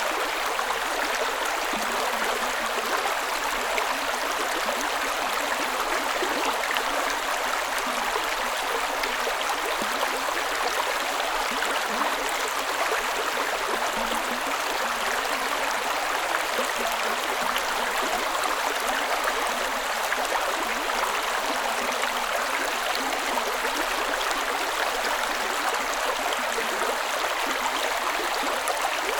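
Creek ambience: water running steadily in a small stream, an even rush with no breaks or single splashes.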